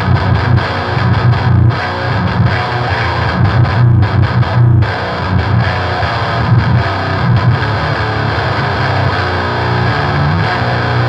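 Electric guitar riffing through a TC Electronic Eyemaster, an HM2-style distortion pedal, into a Mesa Boogie amp's high-gain channel. It gives a heavy buzzsaw tone with lots of gain, the Swedish death metal sound, played continuously with brief breaks in the top end about 2 s in and again around 4 to 5 s.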